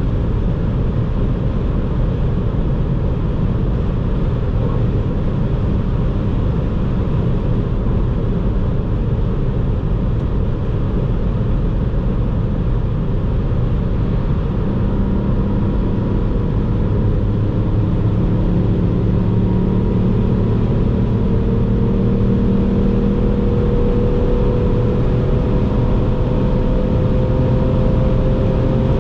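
Ford Fiesta ST's 1.5-litre three-cylinder turbo engine and road noise, heard from inside the cabin at autobahn speed. From about halfway the engine note comes through more plainly and rises slowly as the car accelerates.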